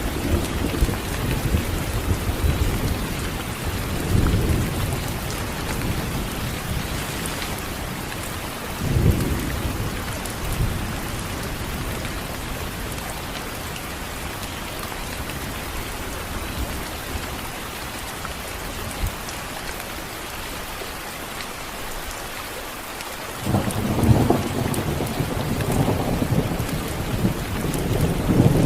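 Steady rain falling with rolling thunder: low rumbles in the first seconds, a brief sharper roll about nine seconds in, then a long rumble that starts near the end and grows louder.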